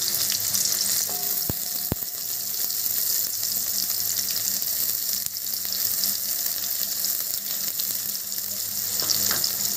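Chopped onions sizzling in hot mustard oil in a steel kadai: a steady, dense frying hiss. Two sharp ticks come about a second and a half and two seconds in.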